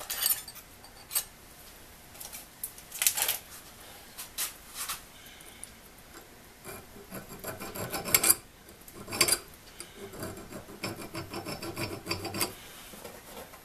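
A hand file rasping on the steel Acme threads of a vise's clamping screw, in separate irregular strokes. A run of quicker light scrapes comes near the end.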